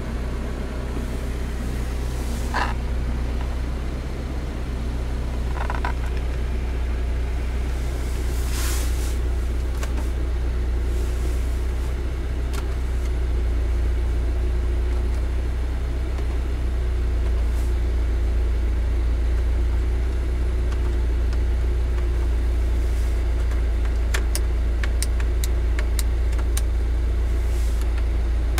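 Mini Cooper S's 1.6-litre turbocharged four-cylinder car running steadily: a low, even drone. A few short knocks come through it, and a quick cluster of sharp ticks near the end.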